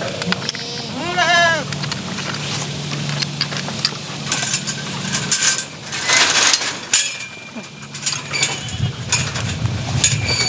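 A goat bleats once, a short arched call about a second in, among scattered metallic clicks and rattles of gate and fencing.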